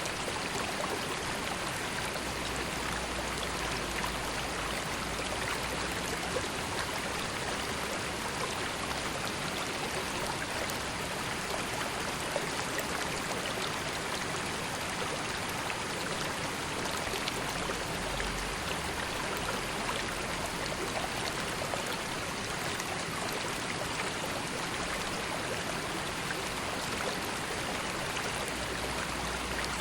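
River water flowing: a steady, even rush with fine splashing and trickling.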